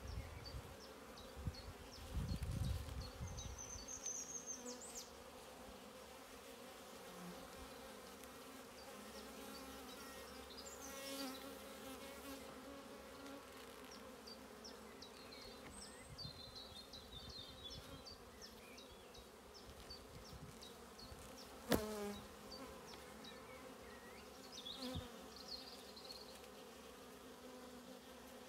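Honeybee colony humming steadily from an open hive, with a single sharp knock about three-quarters of the way through.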